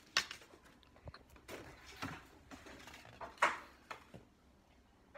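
Scattered handling sounds: a few short knocks and clicks and brief rustling bursts. The loudest is a noisy burst about three and a half seconds in.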